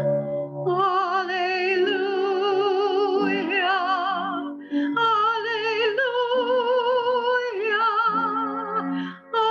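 A woman singing solo with a wide vibrato over held low accompanying notes, in long phrases with short breaks for breath about halfway and near the end.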